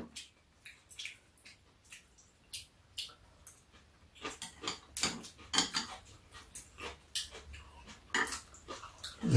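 Eating at a table: chopsticks and metal spoons clicking against bowls, with slurping and chewing. The small clicks come more often in the second half, and a louder low sound comes near the end.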